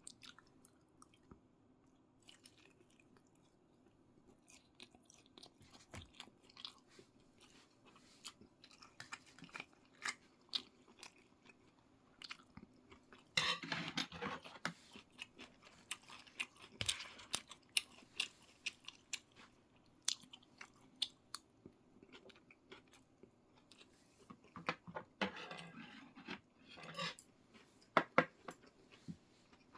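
A person chewing food close to the microphone: a run of small mouth clicks, with louder, denser spells of chewing about halfway through and again near the end.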